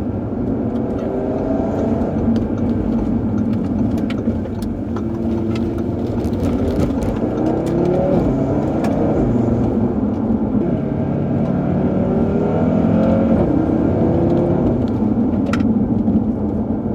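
2018 Audi RS3's turbocharged five-cylinder engine accelerating hard, its pitch climbing and dropping back several times as it shifts up through the gears, over a steady rumble of road noise.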